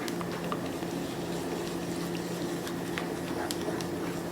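Alfredo sauce simmering in a pan on the stove, with scattered small bubbling pops over a steady low hum.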